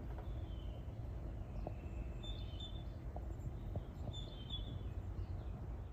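Steady low background rumble with a few faint, short high chirps, the clearest about two and four and a half seconds in.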